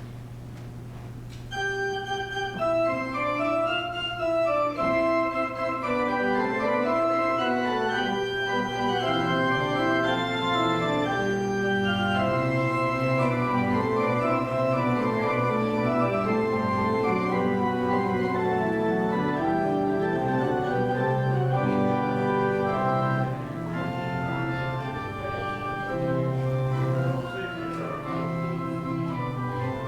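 Church organ playing a busy passage of many quick notes over a held low bass note. At first only the low note sounds; the full passage comes in about a second and a half in.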